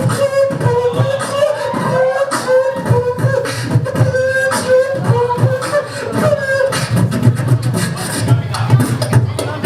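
Hip-hop beat with a dense, fast rhythm of clicks and kicks. Over the first seven seconds or so it carries a held, slightly wavering melodic tone.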